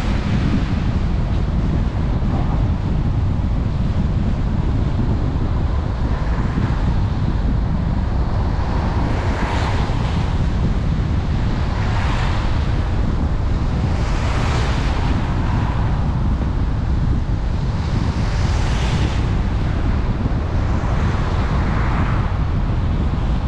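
A car driving on a wet road: a steady low rumble of wind on the microphone and tyre noise, with the hiss of wet asphalt. About five times, an oncoming vehicle passes with a rising and fading swish of tyre spray.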